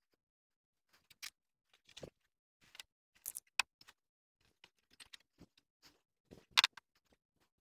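Scattered light clicks and rattles of plastic cord being threaded and tied around the steel mesh of an IBC cage to fasten a lid on top, with one sharper knock near the end.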